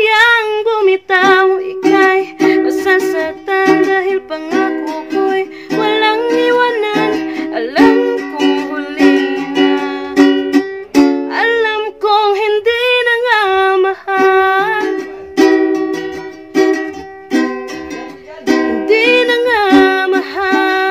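A woman singing while strumming chords on a ukulele; her long held notes waver in pitch.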